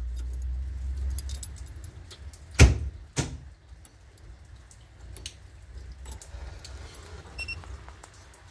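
Keys jangling in a car's ignition as the key is turned to switch on the electrics, with a sharp click about two and a half seconds in and a smaller one just after. A faint short beep comes near the end.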